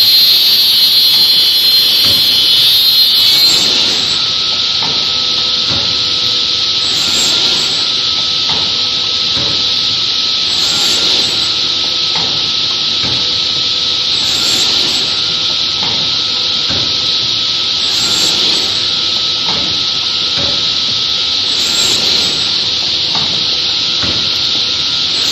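Woodworking machinery running with a loud, steady, high-pitched saw-like noise. A high whine over the first few seconds gives way to a hiss, with a brief surge about every four seconds, like repeated cutting cycles.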